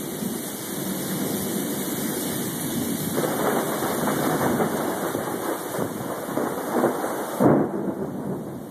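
Heavy rain pouring steadily in a thunderstorm, growing louder and more gusty partway through. A sudden loud burst comes near the end.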